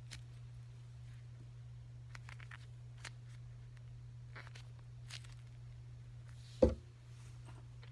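Faint rustles and light clicks of small objects being handled, with one loud low thump about two-thirds of the way through, over a steady low electrical hum.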